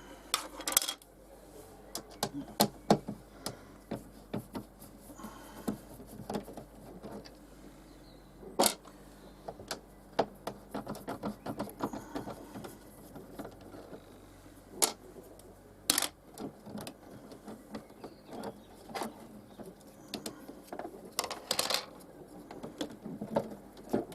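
Irregular clicks, taps and knocks of small plastic and metal parts being handled as a caravan's 12-volt socket is taken apart, with a few sharper knocks standing out.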